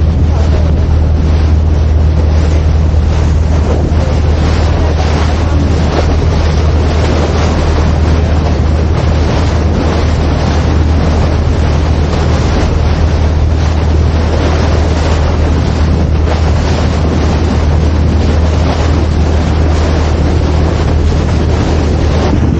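Small motorboat's engine running steadily in rough, choppy sea, with heavy wind buffeting the microphone and waves rushing past.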